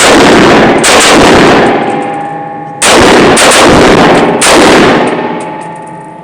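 Four gunshots, the first two less than a second apart, then two more about two and a second and a half later. Each is followed by a long echoing tail. The shots are loud enough to overload the recording.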